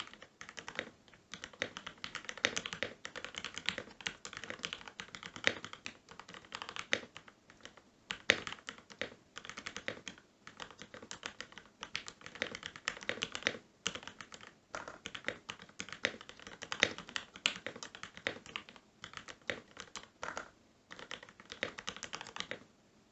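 Continuous typing on a custom DZ60RGB V2 60% mechanical keyboard with lubed Gateron Black Ink v2 linear switches, PBT Cherry-profile keycaps and a stacked acrylic case: a dense run of keystrokes broken by a few short pauses, stopping shortly before the end.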